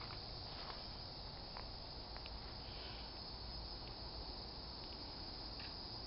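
Faint, steady high-pitched insect chorus of crickets in woodland, with a few light ticks in the first couple of seconds.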